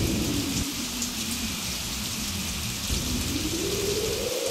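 Steady rain falling in a thunderstorm, an even hiss of drops with a low rumble underneath.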